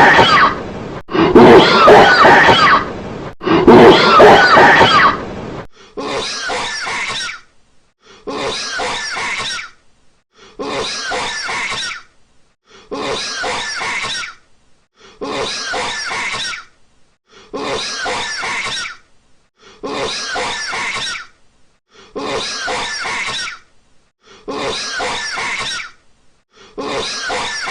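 A man coughing in a looped edit: loud, drawn-out coughing bursts for the first six seconds, then one shorter, quieter cough clip repeated identically about every two seconds.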